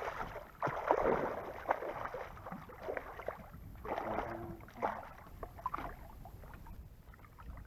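Hooked catfish splashing and thrashing in the water at the side of the boat as it is brought in to be landed, in irregular bursts that ease off near the end.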